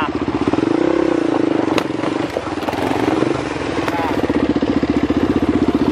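Motorcycle engine running at idle with a steady pulsing beat, blipped up briefly about a second in and again around three seconds.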